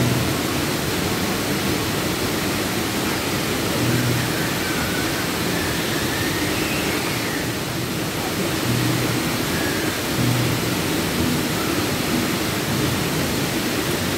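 River flowing steadily: a constant, even rush of water.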